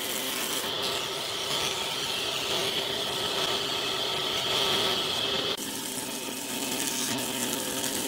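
Nisino wood planer running and planing a board, the cutterhead shaving the timber with a steady noise. A high whine in it stops about five and a half seconds in, and the sound changes.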